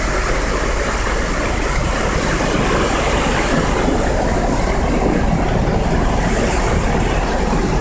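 Muddy flash-flood water rushing across the road and around the truck, a loud, steady rush, with the low hum of the truck's idling engine underneath.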